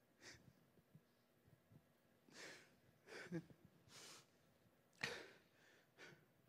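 A man's faint breaths and sighs over near silence, several in all, the sharpest about five seconds in.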